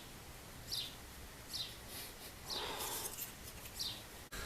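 A small bird chirping repeatedly, about once a second, each chirp a short high note falling in pitch, with a brief rustle about two and a half seconds in.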